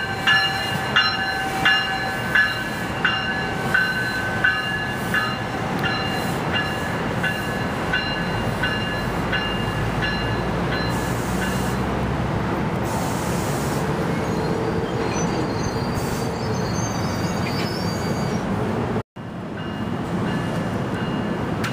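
Passenger train rolling along the platform track: wheels clack over rail joints about one and a half times a second, with high squealing tones from the wheels, then settle into a steady rumble. The sound cuts out for a moment near the end.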